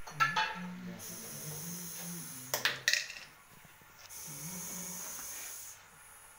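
A snake hissing in two long breaths, with two sharp knocks in between, about two and a half seconds in.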